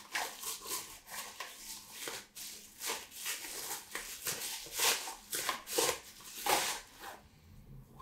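Clear plastic bubble wrap crinkling and rustling as it is pulled off a teacup by hand, in a run of short bursts that stop about seven seconds in.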